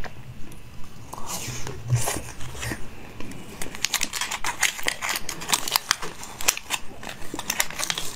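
A bite and chewing on a chocolate-coated treat, then the gold foil wrapper of the next one crinkling and crackling as it is peeled open, with dense crisp crackles from about three and a half seconds in.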